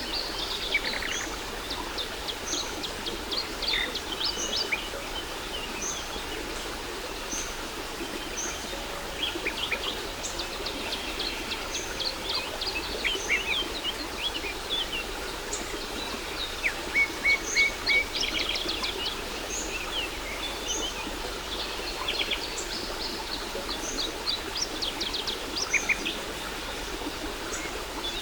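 Several birds chirping and singing over the steady rush of a waterfall; one bird repeats a short high note about once a second.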